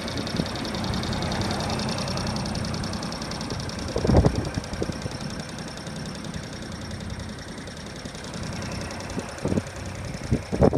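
Diesel engine of a 2000 John Deere 27ZTS mini excavator running steadily. There is one loud clunk about four seconds in and a few lighter clunks near the end.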